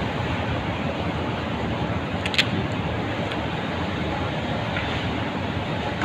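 Steady rushing background noise with one sharp click about two and a half seconds in.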